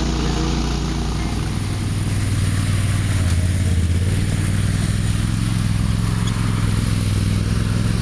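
A vehicle engine running steadily, picking up a little about two seconds in.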